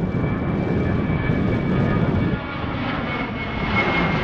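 Boeing 737-800 jet airliner's CFM56-7B turbofans at climb power as it climbs out overhead just after takeoff with its gear retracting: a steady rumble with a thin, high whine over it, dipping a little about halfway through.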